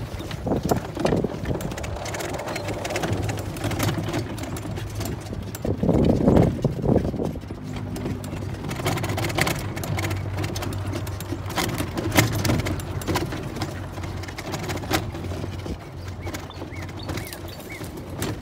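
Golf cart driving over gravel and rough, bumpy ground: a steady low hum with frequent rattles and knocks of the cart body and tires over the bumps, loudest about six seconds in.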